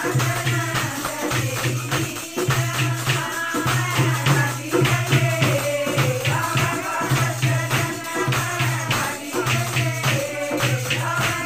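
Women singing a folk song together, with hand clapping, jingling percussion and a repeating low beat.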